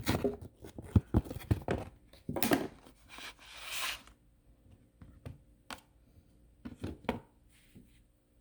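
Potatoes being put by hand into a container: a quick run of knocks and thuds, two rustling scrapes, then a few separate knocks.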